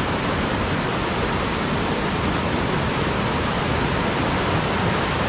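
Shallow, fairly swift river running over a bed of rocks and boulders: a steady, even rush of water.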